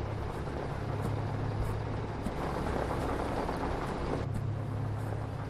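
Vehicle engine idling with a steady low hum. A broad rushing noise swells over it in the middle and eases off about four seconds in.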